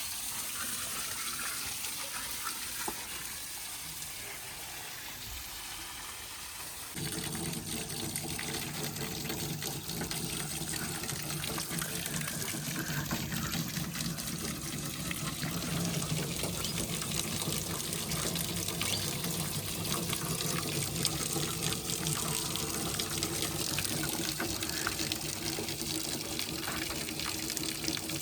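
Steady rushing of water. About seven seconds in, an engine starts running steadily alongside it.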